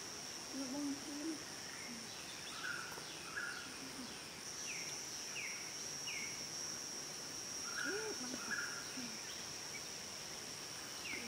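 Steady, high-pitched insect drone that grows louder about four seconds in, with a bird repeating short downward-sliding calls over it.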